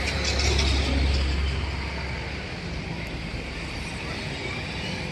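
Road traffic passing close by, with a vehicle going past loudly in the first two seconds or so, a deep rumble that then eases.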